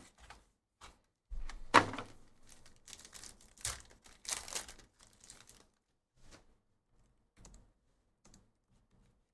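A foil trading-card pack is handled and torn open, crinkling for a couple of seconds, after a sharp knock about two seconds in. A few faint taps follow as the cards are handled.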